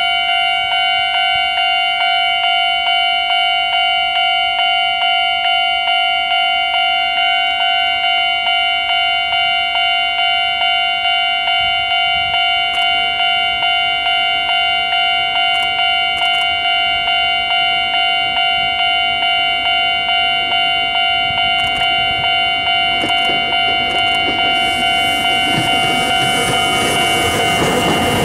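Railway level-crossing warning bell ringing steadily at about two strikes a second. In the last few seconds the rumble of a Deki 105 electric locomotive and its Hoki 10000 coal hopper wagons passing close by rises under the bell.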